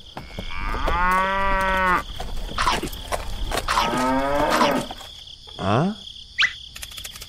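Cow mooing twice in long, drawn-out calls, followed by a couple of brief rising sounds near the end.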